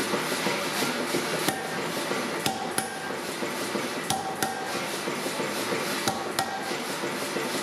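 Hammer blows on steel bar stock at the anvil, spaced a second or two apart and mostly in pairs about a third of a second apart, each with a short metallic ring, over a steady rushing noise.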